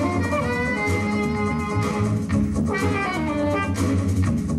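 Live jazz-fusion band playing: a sustained horn melody over a moving bass line and drums, the drummer playing a kit with hexagonal electronic drum pads and cymbals.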